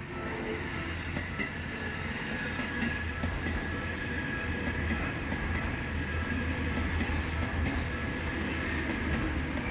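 A Seibu Railway train passing over the level crossing: a loud rumble and rattle of wheels on track sets in at the start and runs on. The crossing's warning bell keeps ringing in a regular repeating beat under it.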